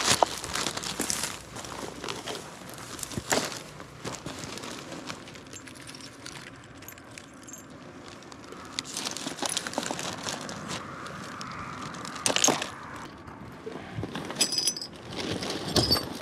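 Plastic trash bag crinkling and rustling while broken green glass bottle pieces are picked up and dropped into it, with scattered sharp clicks and a few clinks of glass near the end.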